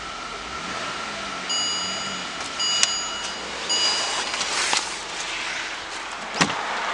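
Holden VE Commodore's dashboard warning chime sounding three times, about a second apart, with a few sharp clicks, the loudest about six and a half seconds in.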